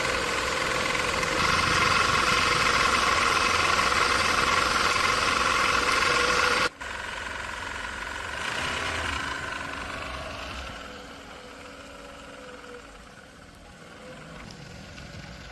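A motor running steadily. About seven seconds in the sound cuts off abruptly and gives way to a quieter machine sound that slowly fades.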